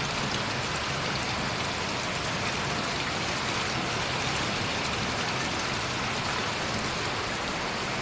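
Steady rushing and splashing of rainwater pouring from flexible hoses into a rainwater-harvesting pit.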